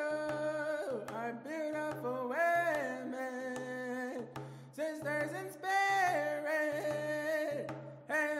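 Hand drum honour song: a voice singing long held notes that slide from pitch to pitch, over a low drum.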